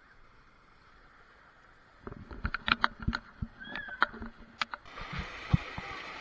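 Water rushing steadily into the mouth of an enclosed tube waterslide, setting in about five seconds in. Before it comes a run of sharp knocks and clicks.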